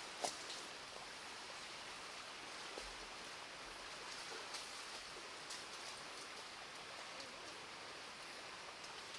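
Shallow stream running steadily, with water splashed and scooped by hand; one sharp splash just after the start, then lighter splashes.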